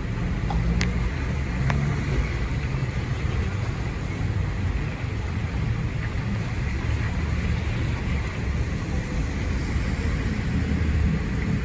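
Steady storm noise of strong wind and heavy rain, with a low, uneven rumble of wind on the microphone.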